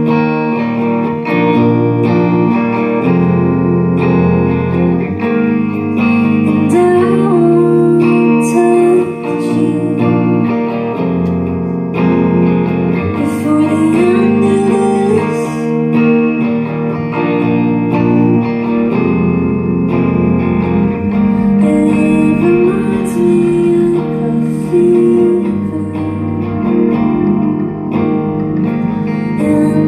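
A live rock band playing: electric guitars over a drum kit, with cymbal crashes now and then.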